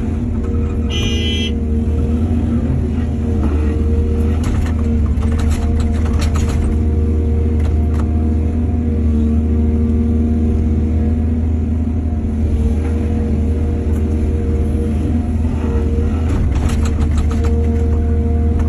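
Heavy diesel excavator engine running steadily under load, with bursts of scraping and clanking as soil is dug and dumped into a truck. A short high-pitched squeal about a second in.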